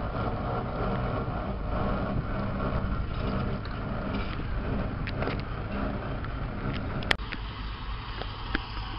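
Steam traction engine running as it drives off, with a steady low chuffing and mechanical clanking and rattling from its gearing. A sharp click about seven seconds in, after which the sound is quieter.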